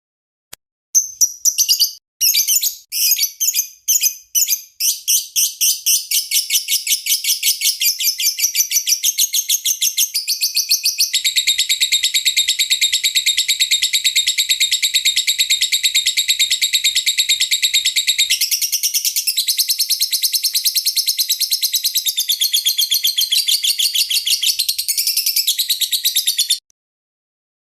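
Lovebird chirping in a long unbroken song of rapid high chirps. It begins as separate chirps, quickens into a fast continuous chatter, and cuts off abruptly near the end.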